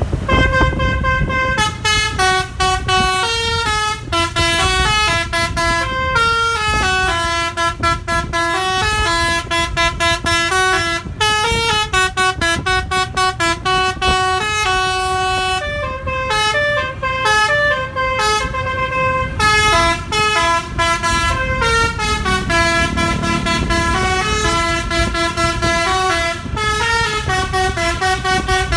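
Bus telolet horn played by hand from a melodica-style keyboard, picking out a tune note by note, one pitch at a time, over a low rumble.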